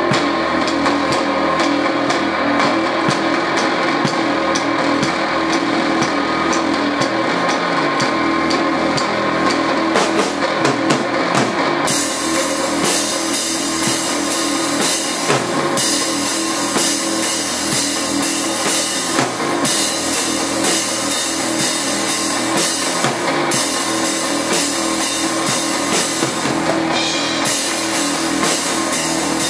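Rock band jamming: a drum kit keeping a steady beat under electric guitar. About twelve seconds in, a loud cymbal wash comes in, breaking off briefly every four seconds or so.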